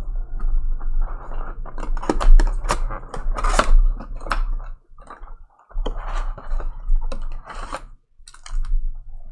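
Crinkling and clicking of packaging being handled, broken by two short pauses: a sealed box of trading cards being unwrapped and opened.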